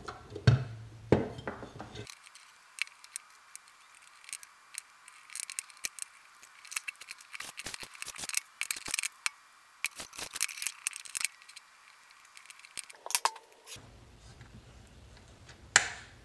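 Irregular small clicks and knocks of a hard plastic locator receiver housing and its circuit board being handled and fitted back together, with a sharper click near the end.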